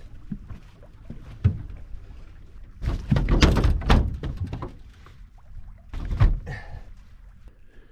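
Thuds and knocks of a large threadfin salmon being laid down and handled on a boat deck: a single knock about a second and a half in, a loud run of rapid thumps about three seconds in, and another knock about six seconds in.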